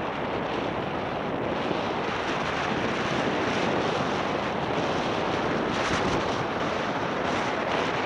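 Steady rushing wind on the microphone of a helmet-mounted 360° camera while riding an e-mountain bike, mixed with the rolling noise of the tyres on a gravel lane.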